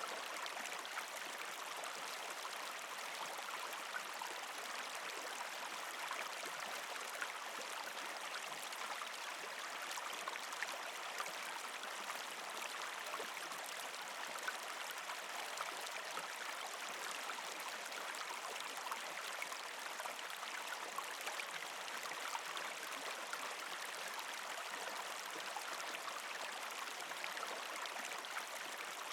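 Shallow creek water flowing and gurgling among rocks and ice: a steady rush with many small splashes and trickles.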